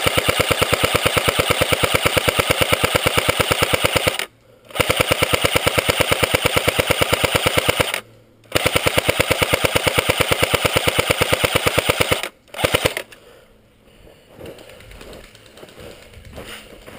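Airsoft M60 light-machine-gun replica firing full-auto in three long, rapid strings of about four seconds each, with brief pauses between them, then a couple of short bursts about twelve seconds in.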